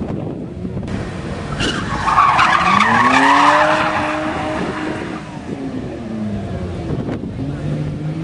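Rally car engine revving hard through a hairpin, the note climbing, dropping away, then picking up again near the end. Tyres squeal and scrabble on tarmac for about two seconds in the middle as the car slides sideways, the loudest part.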